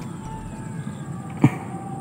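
A single short thump about one and a half seconds in, over steady outdoor background noise with a faint high steady tone.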